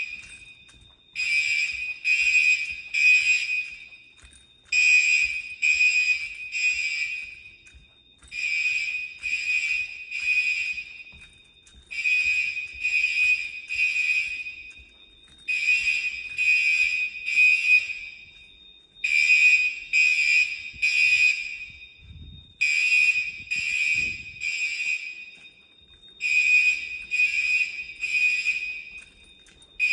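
Fire alarm bell ringing in the temporal-three pattern, the standard fire evacuation signal: bursts of three rings separated by short pauses, repeating about every three and a half seconds. A faint steady high tone runs underneath.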